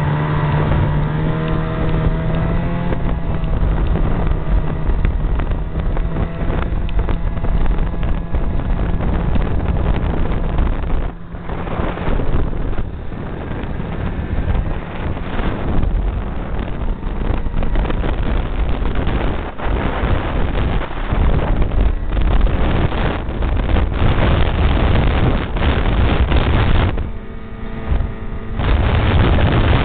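Ski-Doo Rev snowmobile running at speed under the rider, with wind buffeting the microphone. The sound dips briefly twice, once near the middle and again near the end.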